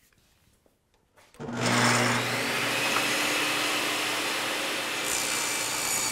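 Portable table saw switched on about a second and a half in, its motor spinning up and then running steadily while a narrow strip is ripped through the blade.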